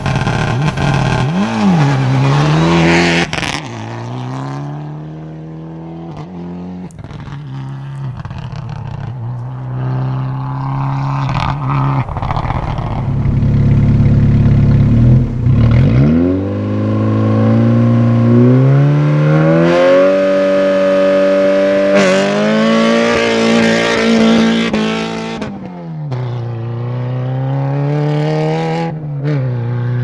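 Rally cars leaving a gravel stage start. About 3 s in, a Mitsubishi Lancer Evolution revs hard and pulls away. A Volkswagen Golf then idles at the line, revs up and launches hard from about 16 s, its engine held high with gravel noise around 22–25 s. Near the end its revs dip and climb again.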